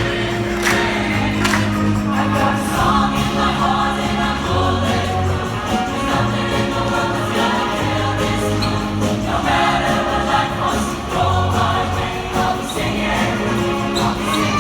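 Gospel-style choir singing with band accompaniment: a steady bass line and a regular drum beat under the voices.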